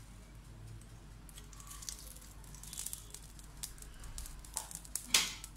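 Light crackling and crinkling from a frying pan of chicken in hot oil and its aluminium-foil cup of coals, with a few small clicks and one sharp click about five seconds in, the loudest sound.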